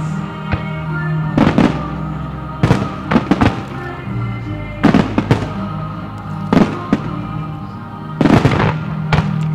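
Aerial firework shells bursting with sharp bangs, singly and in quick clusters of two or three every second or so, over music with long sustained tones played for a fireworks display set to music.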